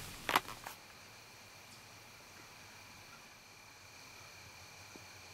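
A few sharp clicks in the first second, then faint woodland ambience with a steady high-pitched insect drone.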